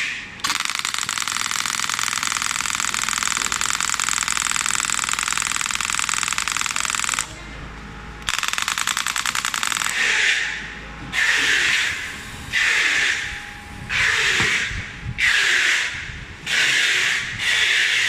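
Pneumatic radial shock wave therapy handpiece firing at about 21 impacts a second, a rapid even rattle. It runs in one long stretch that stops about seven seconds in, resumes about a second later, and then comes in bursts of about a second each.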